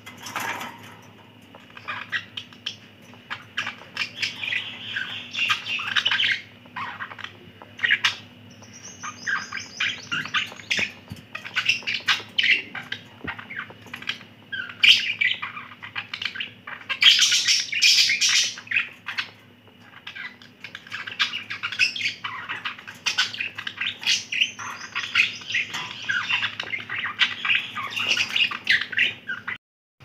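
Budgerigars chattering and warbling: a continuous busy run of chirps, twitters and short squawks, with a burst of harsher, high calls about halfway through. It breaks off suddenly just before the end.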